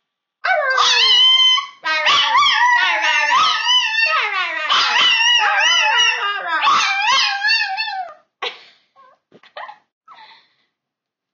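Chihuahua howling: a long, high-pitched, wavering howl in several breaths for about eight seconds, trailing off into a few short, faint yips and whimpers.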